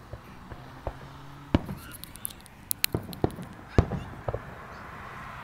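Aerial firework shells bursting: an irregular run of sharp bangs and pops, the loudest about a second and a half in and just before four seconds, with fine crackling in between.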